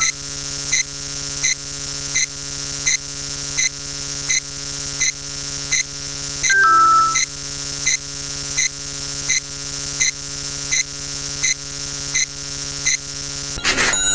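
Electronic sound effect: a steady buzzing hum with a sharp click about every 0.7 seconds and a short falling two-note beep about halfway through. Near the end a brief noisy burst cuts in, followed by ringing electronic tones.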